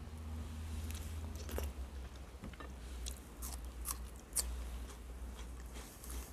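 A person chewing food close to the microphone, with wet mouth clicks and smacks; the sharpest click comes about four and a half seconds in.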